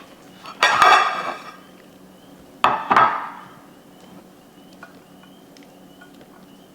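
Two loud clattering clinks of utensils against dishware, about two seconds apart, each ringing briefly, as lo mein noodles are served onto a plate.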